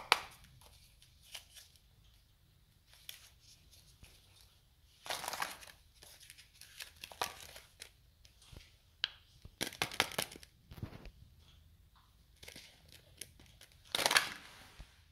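Plastic-foil wrappers of packaged ice cream cones crinkling as they are handled, in short scattered bursts, with a louder rustle near the end as the cones are laid down.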